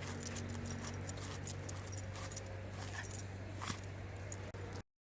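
Dog's collar tags jingling in scattered light metallic clinks over a steady low hum, cutting off abruptly near the end.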